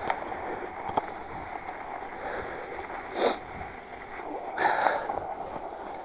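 Northrock XC00 fat bike's wide tyres rolling and crunching steadily over a snow-covered sidewalk. Two short, louder breaths come from the rider about three and about four and a half seconds in.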